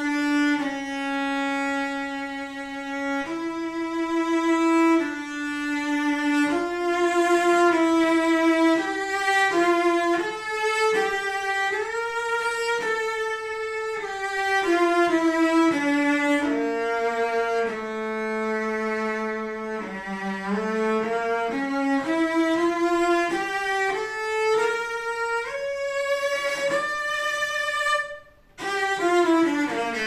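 Solo cello played with the bow: a slow melody of sustained notes in its middle-to-upper range, each moving smoothly into the next. It breaks off briefly about two seconds before the end, then begins a run of notes falling in pitch.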